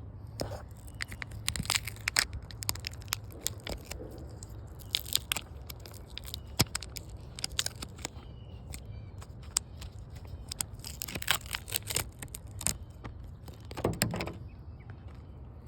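Hands handling a tire plug kit, with a sticky plug strip being pulled free of its packing: irregular crackling, tearing and clicking in several louder bursts, over a steady low hum.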